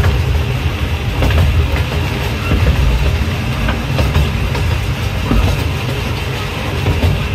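Small zoo passenger train, the Safari Train, running along its track, heard from aboard one of its cars: a steady low rumble of wheels on rails, with occasional clacks.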